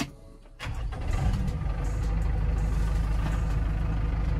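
Kubota M9540 tractor's diesel engine, heard from inside the cab, starting up about half a second in. Its speed flares briefly about a second later, then it settles into a steady idle.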